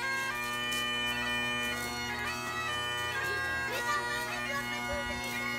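Highland bagpipes of a pipe band playing a tune together over their steady drones, the melody stepping from note to note.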